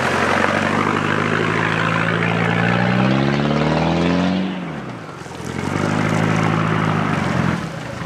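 Land Rover Discovery turbo-diesel engine working off road under load: the revs climb for a couple of seconds, drop sharply about four and a half seconds in, then pick up again and ease off near the end.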